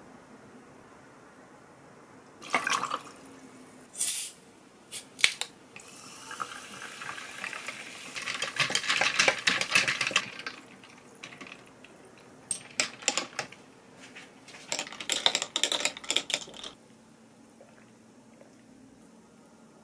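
Limeade poured from a glass jar over ice cubes into a tall glass, then the ice stirred with a straw, cubes clinking and knocking against the glass.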